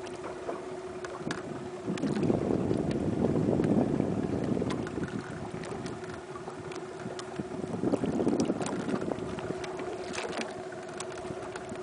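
Steady hum of a glass-bottom boat's motor running slowly. Water rushes louder against the hull twice, about two seconds in and again around eight seconds.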